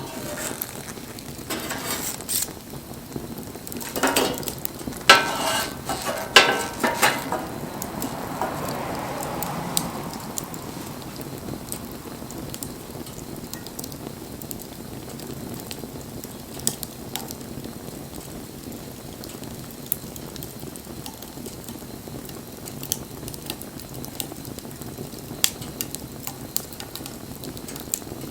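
Campfire crackling: a steady hiss with scattered sharp pops. During the first seven seconds or so a run of loud clattering knocks, some with a brief metallic ring, sits over the fire.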